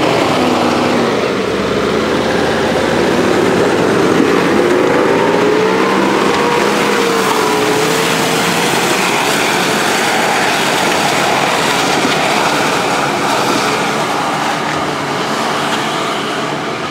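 Nissan Patrol 4x4 engine working under load as it climbs a steep muddy track, revs rising and falling, getting a little quieter near the end as it pulls away.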